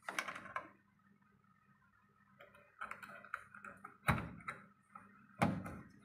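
Small plastic clicks and rustles of hands working in a washing machine's top housing, fitting wire connectors onto the water inlet valve, with two sharper knocks about four and five and a half seconds in.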